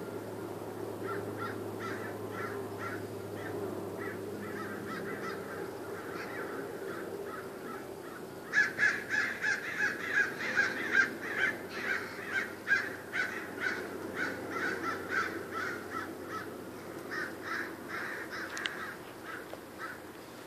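A flock of crows mobbing a raptor, cawing alarm calls. The caws are faint at first, turn into a loud, dense chorus of several calls a second from about eight seconds in, then thin out toward the end.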